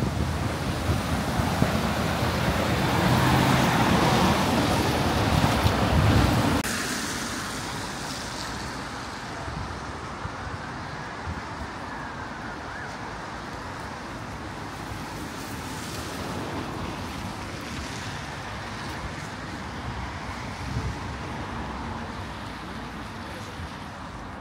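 City street traffic noise: a loud rush of passing vehicles for the first six seconds or so, cutting off suddenly, then a quieter steady hum of distant traffic.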